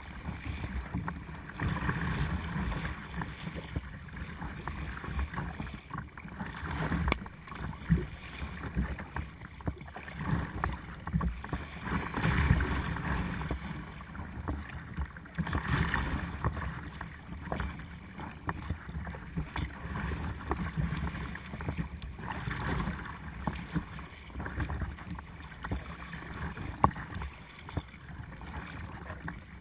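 Choppy sea water splashing and rushing against the hull of a Perception Essence 17 sea kayak under way, swelling in uneven surges every few seconds, with a few short sharp splashes.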